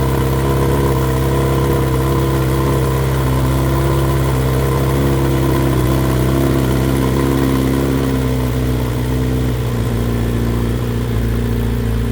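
BMW S1000XR's inline-four engine idling steadily through decatted headers with only the end-can dB killer fitted. The note eases down a little about eight seconds in, as the idle drops once the engine management stops its catalyst warm-up routine.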